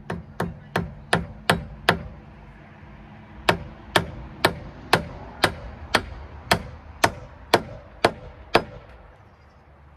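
Hammer driving nails into wood framing: six quick blows, a short pause, then eleven steady blows about two a second.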